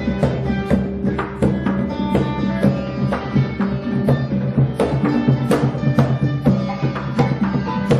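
Dayak gong ensemble music: gongs of several pitches struck in a quick, busy rhythm, with the low gongs ringing on underneath.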